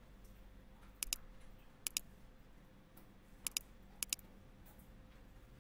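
Computer mouse button double-clicking, four quick pairs of sharp clicks over a few seconds.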